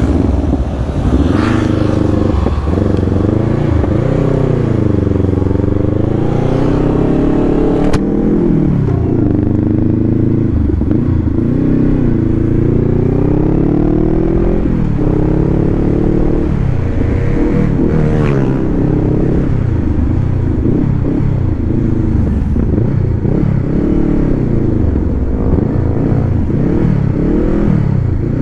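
Honda CBR500R's parallel-twin engine being ridden, revving up and down so that its pitch rises and falls every couple of seconds.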